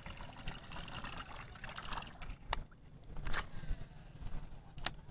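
Quiet lapping of water against the boat under a steady low rumble, with three short sharp clicks, two about halfway through and one near the end.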